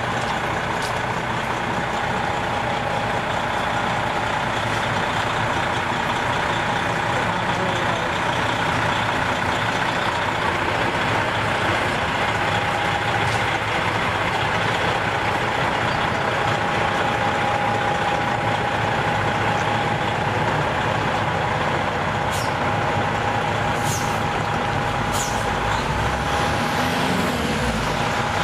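Freightliner Classic semi-truck's diesel engine running steadily as the tractor unit manoeuvres slowly, with a steady whine over the engine note.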